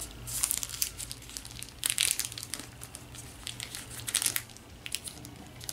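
Crinkly snack wrapper of a nougat bar being twisted and pulled open by hand, in several irregular bursts of crackling.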